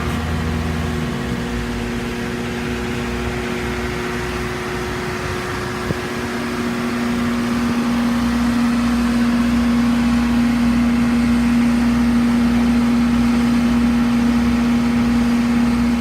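A motor or engine running steadily, with a strong hum that comes in about six seconds in and holds.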